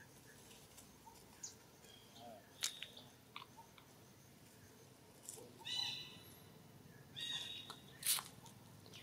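A baby macaque chewing on a stick: scattered small clicks and crunches. Two short high-pitched animal calls sound about six and seven seconds in, and a sharp click comes near the end.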